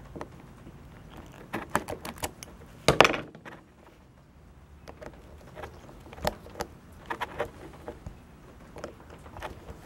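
Small metallic clicks and taps of needle-nose pliers and a flat screwdriver working wire ends under a plug's terminal screws, scattered through, with a louder clatter about three seconds in.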